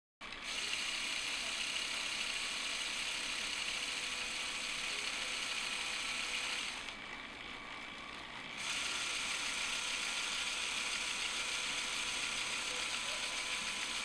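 Lego Technic model V-22 Osprey's electric motor and gear train running: a steady, high-pitched mechanical whirring with gear rattle. It cuts in suddenly, drops away for about two seconds in the middle, then resumes at full level.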